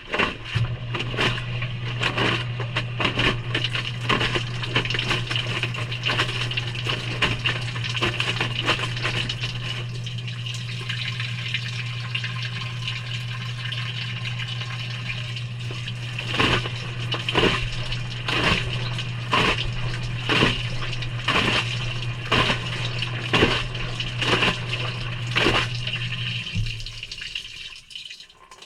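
Maytag front-load washing machine filling with water: water splashes and pours into the drum over a steady low hum. The hum cuts off shortly before the end and the water sound dies away with it.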